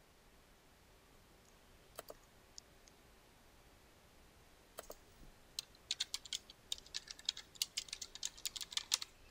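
A few single clicks, then a quick run of typing on a computer keyboard starting a little past halfway.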